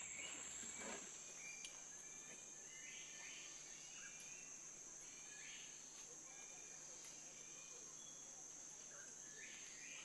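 Faint forest ambience: a steady high-pitched insect drone, with a few faint short bird calls.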